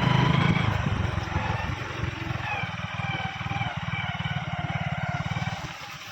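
Motorcycle engine running at low speed, its firing pulses steady throughout and easing off slightly near the end.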